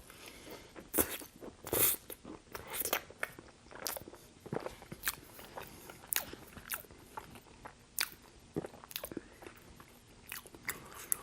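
A person eating Burger King food, with crunching bites and chewing as a run of irregular crisp clicks, about one or two a second.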